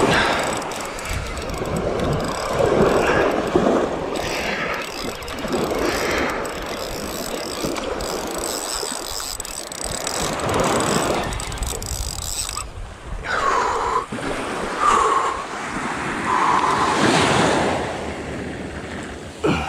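Van Staal X-series spinning reel being cranked, its gears running as the line comes in, against surf washing up the beach in swells every few seconds and wind on the microphone.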